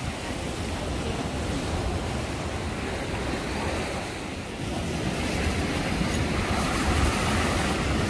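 Sea waves washing and breaking against shoreline rocks, with wind rumbling on the microphone; the surf gets a little louder about halfway through.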